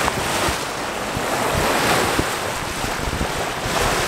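Wind and breaking sea rushing past a sailboat at sea, swelling and easing, with gusts buffeting the microphone in the tail of a squall.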